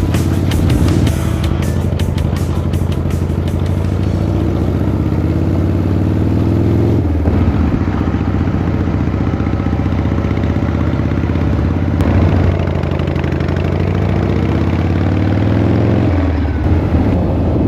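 Motorcycle engine under way, accelerating through the gears: its pitch climbs, then drops back at gear changes about seven seconds and sixteen seconds in.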